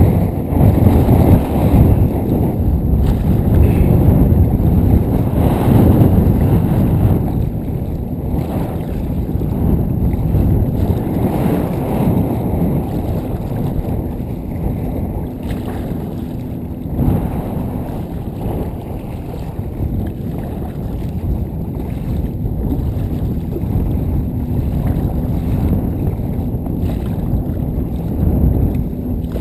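Strong wind buffeting the action camera's microphone in a deep, rough rumble that swells and eases, with choppy waves splashing against the hull of an Ascend FS12T fishing kayak as it is paddled.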